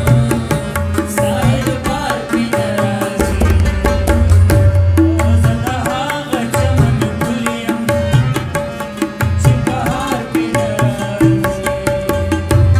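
Pashto song music: a steady drone, a deep pulsing beat and a melody line that bends up and down in pitch.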